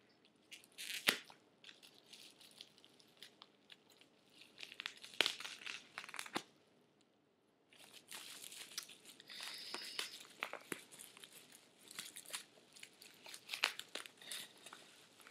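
Mailing package being opened by hand: paper and packing material tearing, crinkling and rustling, with scattered sharp clicks and taps, fairly quiet. The handling stops briefly about seven seconds in, then the rustling resumes and keeps up.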